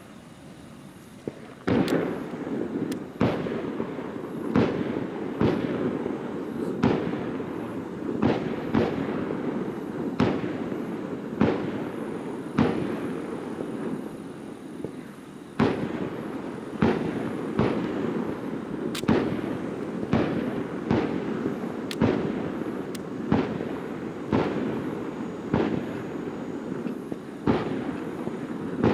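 Aerial fireworks shells bursting in quick succession, about one bang a second, starting about two seconds in, with an echoing rumble between the bangs and a brief lull midway.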